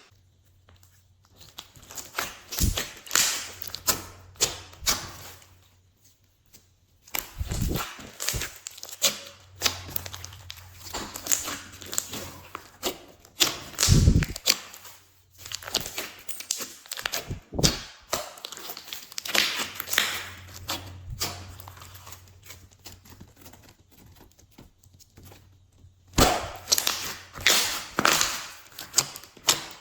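Glossy slime being squished, stretched and pressed by hand, giving sticky, wet clicks and crackles in bursts of a few seconds with short pauses between them.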